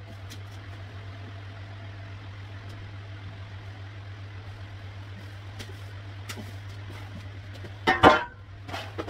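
Long steel beam set down on a concrete floor about eight seconds in, a loud ringing metallic clang, followed by a lighter clank just before the end. A steady low hum runs underneath.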